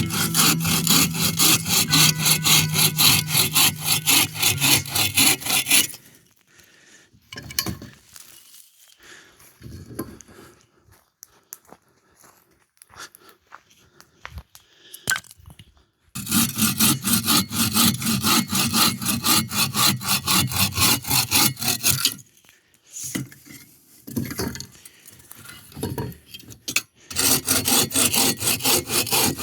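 Hand saw cutting through wood in three bursts of rapid, even back-and-forth strokes, with pauses between them filled by quieter knocks and handling of the wood.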